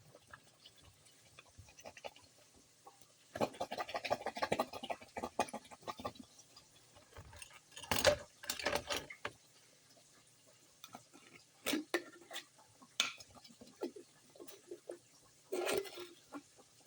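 Kitchen clatter: dishes, pots and utensils knocking and clinking in scattered bursts, with a few sharp single clicks toward the end.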